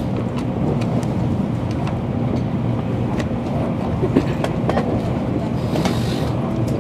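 Running noise of an N700-series Shinkansen heard inside the carriage: a steady low rumble with scattered light clicks. A brief rush of hiss comes about six seconds in.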